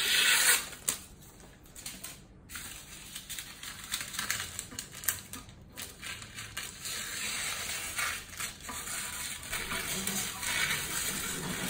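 Scissors cutting parchment paper, with the paper crackling and crinkling as it is lifted and trimmed. It is loudest in the first second, then goes on more softly as a series of small crackles and snips.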